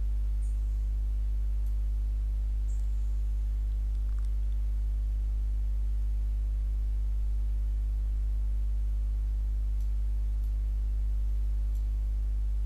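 Steady low electrical hum with faint higher overtones, unchanging throughout: mains hum in the recording chain.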